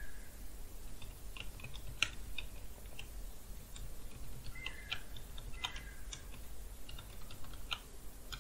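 Computer keyboard being typed on: short irregular keystroke clicks in small runs with pauses between, one louder stroke about two seconds in.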